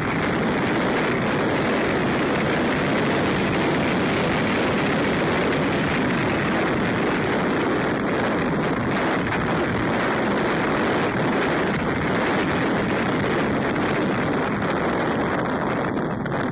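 Steady noise of a Subaru XV driving along a dirt track: wind on the microphone over tyre and road rumble, with no distinct engine note.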